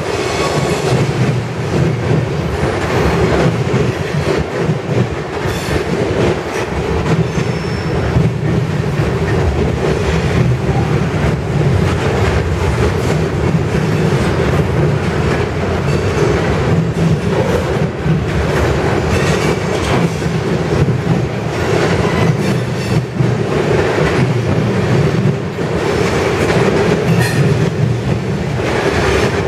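Freight cars rolling past at close range: a steady rumble of steel wheels on rail, with repeated clicks over rail joints and a few brief high squeals.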